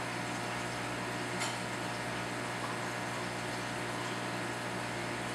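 Aquarium pump running with a steady hum, its outflow churning the tank's water, with one light click about a second and a half in.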